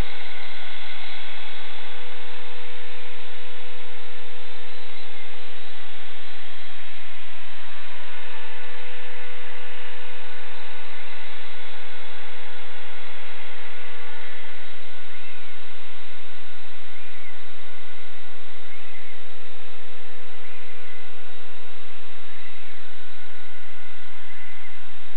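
EXI-450 RC helicopter's electric motor and rotor running with a steady whine made of several tones. The pitch shifts slightly about seven seconds in.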